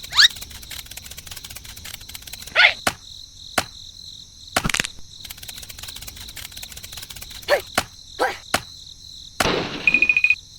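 Steady high chirping of crickets, broken by a few short rising whistle-like swoops and several sharp clicks.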